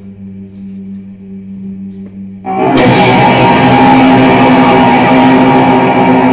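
Rock music: a sustained electric guitar drone, then about two and a half seconds in a loud, dense electric guitar sound through effects pedals comes in and holds.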